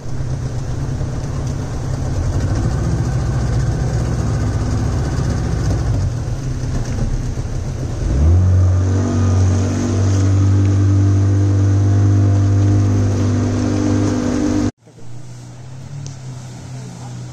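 Motorboat engine running steadily, with water and wind noise. About eight seconds in it revs up and holds a higher, stronger pitch. It cuts off suddenly near the end, leaving a fainter engine hum.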